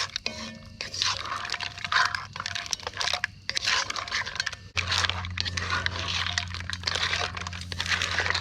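Crackling and sizzling over a campfire, with many small irregular pops. A low steady hum comes in about halfway through.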